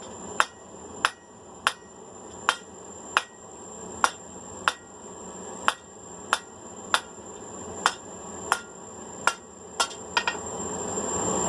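Hand hammer striking hot steel round bar on an anvil, drawing a point on a tripod leg: a steady rhythm of sharp ringing blows, a little more than one a second. Under the blows a small insect's buzz grows louder toward the end as a gnat comes close to the microphone.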